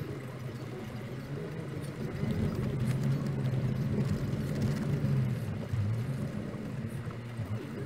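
Car engine running with tyre and road noise on a rough dirt track, heard from inside the cabin; it grows louder about two seconds in.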